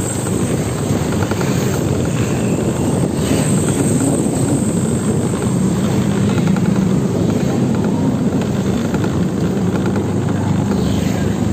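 Steady low engine drone with rushing noise, as from a vehicle riding along a road.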